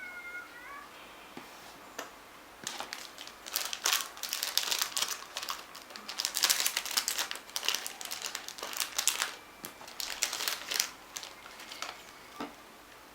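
Packaging being unwrapped: irregular crinkling and rustling that comes in bursts for most of the stretch, then dies away near the end.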